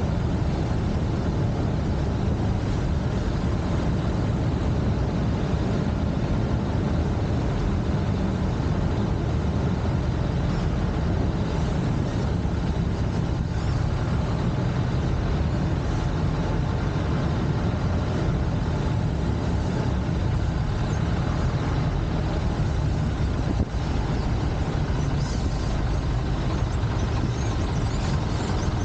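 Steady low drone of a Piper L-4 light aircraft's engine and propeller, holding the same level throughout.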